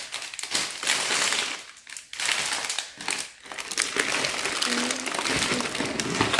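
Clear plastic bags of toy parts crinkling and rustling as they are lifted and rummaged through in a cardboard box, in several stretches with short pauses between.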